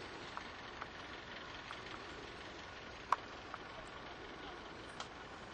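Faint steady outdoor hiss with scattered light clicks and ticks, one sharper click about three seconds in.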